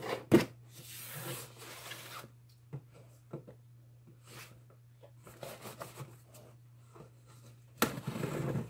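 Scissors cutting the packing tape on a cardboard shipping box, with scraping and rustling as the box is turned on the table. There is a sharp snip about half a second in and a louder spell of cutting and scraping near the end.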